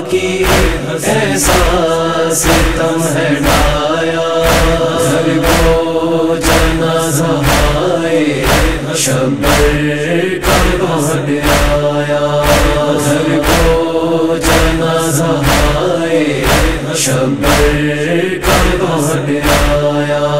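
Noha chorus chanting in long held, slowly gliding notes, over a steady beat of sharp thuds about twice a second.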